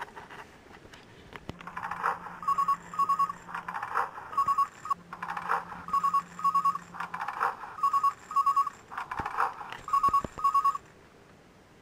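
Electronic beeping: pairs of short, high beeps repeating about every two seconds, with a low steady hum in two stretches, cutting off abruptly near the end.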